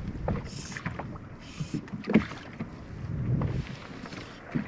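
Choppy water lapping and slapping against the hull of a small drifting boat, with a few sharp knocks and short hissing swishes.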